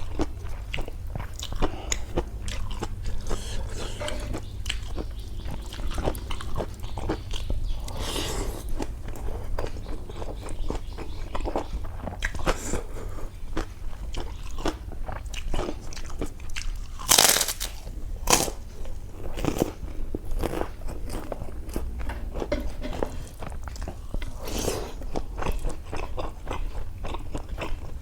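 Close-miked eating: food being bitten and chewed with steady small crunching clicks, and a few louder crunches now and then, over a low steady hum.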